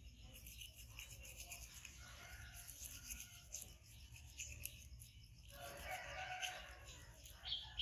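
Toothbrush scrubbing a young macaque's teeth: faint, rapid brushing strokes. In the last few seconds a faint animal call sounds over it.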